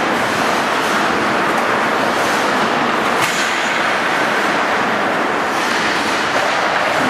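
Steady noise of an indoor ice rink during hockey play, with skates scraping the ice, and a single sharp knock from a stick or puck about three seconds in.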